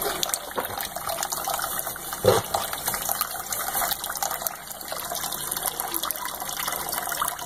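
Kitchen faucet running a thin stream of water into a plastic cup in a stainless-steel sink, a steady splashing hiss. A single knock sounds a little over two seconds in.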